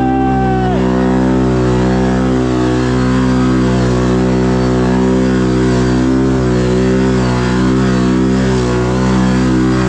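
Can-Am Renegade 1000 XMR ATV's V-twin engine running at steady revs, its pitch wavering slightly up and down.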